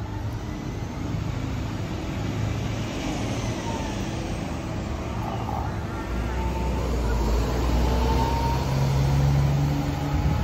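City street traffic with cars going by; about halfway through, a heavy vehicle's engine, a city bus, runs close by with a low hum that grows louder toward the end.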